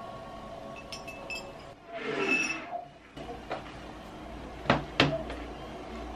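A few light clinks of ice in a glass, then a laptop being handled and set down on a desk, with two sharp knocks in quick succession about five seconds in as it lands and its lid is opened.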